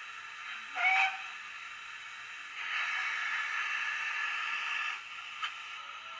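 Sound decoder in a Rapido 15XX pannier tank model, played through the model's small built-in speaker: a short steam whistle toot about a second in, then steam hissing for about two seconds.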